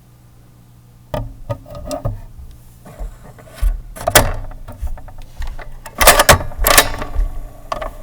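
Irregular mechanical clacks and knocks from a typewriter, starting about a second in, with a loud cluster about six seconds in.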